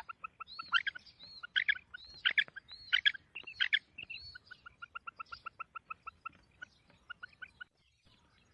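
Female quail calling: fast runs of short, clipped notes, about seven a second, mixed in the first four seconds with louder arching and down-slurred calls. The calling stops about a second before the end.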